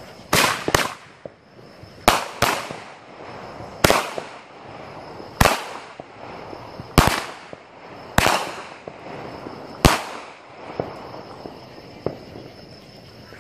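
Multi-shot consumer aerial firework (repeater cake) firing a string of about nine sharp bangs, roughly one every second and a half, each with a short fading tail. The shots stop about ten seconds in.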